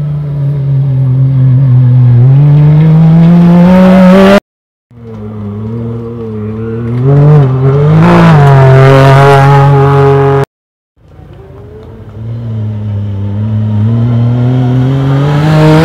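Rally buggy engines at full throttle, heard in three separate passes: in each the engine note climbs steadily in pitch and grows louder as the buggy accelerates toward and past, then cuts off abruptly. About seven seconds in, the note briefly dips and rises again as the throttle is lifted and reapplied through the corner.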